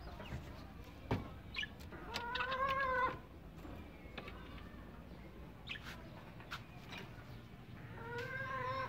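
Chickens calling: two drawn-out, even-pitched calls about a second long, one about two seconds in and one near the end, with scattered light clicks between them.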